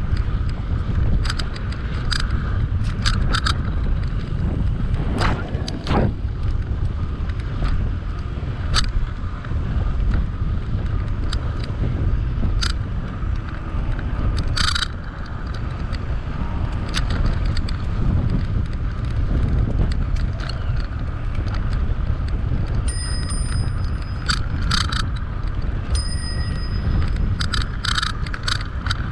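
Steady low wind rumble on the microphone and tyre noise from a bicycle rolling along a paved path, with scattered sharp clicks and ticks. Near the end a bicycle bell rings twice, about three seconds apart, each ring lasting a little over a second: a warning to walkers ahead on the path.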